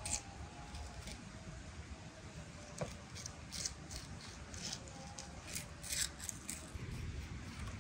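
A handful of short, sharp scraping or cutting strokes at irregular intervals, over a low steady rumble.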